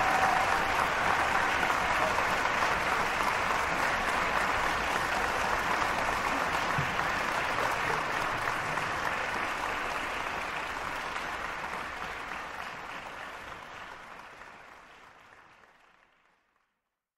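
Steady rushing noise that fades out to silence over the last few seconds.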